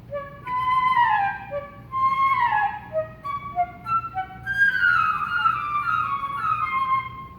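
Solo flute playing a series of falling, sliding phrases that depict wolves howling, growing louder and busier over the second half.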